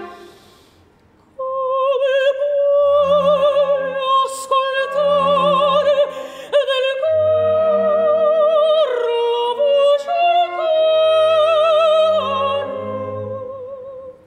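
Operatic soprano singing long, high held notes with a wide vibrato over a soft orchestral accompaniment of low sustained notes. The voice enters after a moment of near-quiet and fades away near the end.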